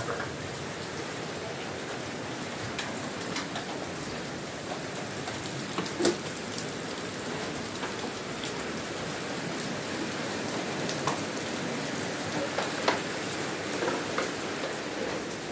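Heavy rain falling steadily, with scattered sharp taps and knocks; the loudest comes about six seconds in.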